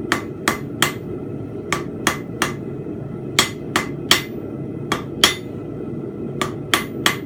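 A 2 lb rounding hammer striking steel on an anvil while forging a fence peg. The blows are sharp and ringing, in quick groups of two or three at about three a second, with short pauses between groups, over a steady low noise.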